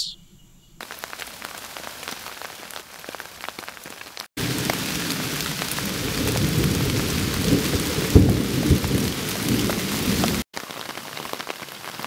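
Rain falling on forest foliage with scattered drips. About four seconds in it changes abruptly to a heavier downpour with a low rumble of thunder, loudest around eight seconds. It drops back abruptly to lighter rain near the end.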